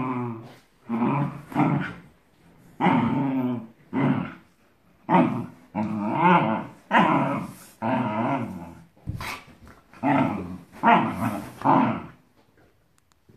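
Dogs growling in play, about a dozen short, pitched growls and grumbles in quick succession that stop near the end.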